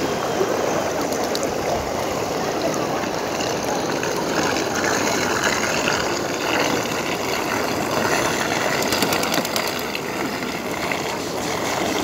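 Steady rushing splash of a fountain's water, with a few light clicks late on.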